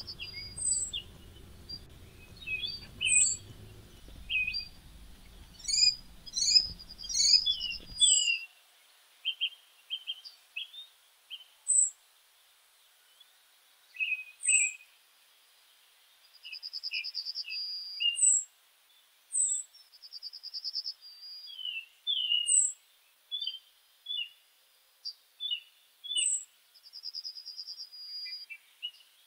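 Birds singing: many short high chirps, quick downward-sweeping whistles and several fast trills, coming a few per second with brief gaps.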